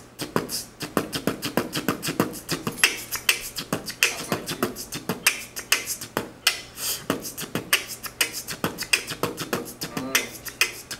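Beatboxing: a quick, steady run of mouth-made drum sounds, sharp clicks and hissy hits over lower thumps, keeping a beat.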